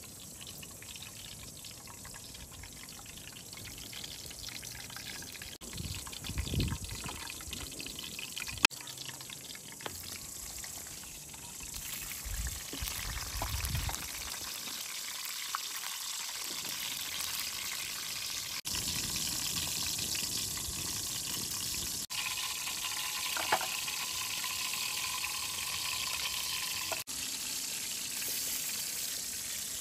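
Liquid pouring and trickling as a steady watery hiss that grows louder, broken off abruptly a few times, with a few sharp knocks and low thuds of kitchen work.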